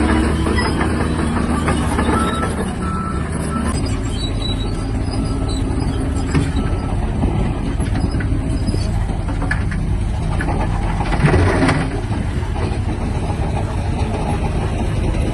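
Diesel engine of a Shantui DH17-C3 crawler bulldozer running under load while it pushes and levels dirt. A few short high beeps sound in the first few seconds. A louder burst of noise comes about eleven seconds in.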